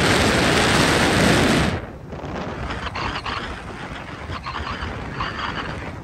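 Wind rushing over the microphone, cutting off abruptly about two seconds in and leaving a quieter low rumble with a few faint, brief higher sounds.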